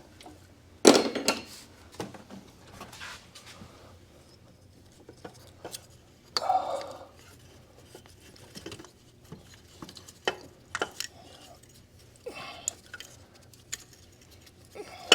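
Metal hand tools clinking and knocking against metal engine parts while a small bolt is worked on, in irregular clicks and clatters, with one loud knock about a second in.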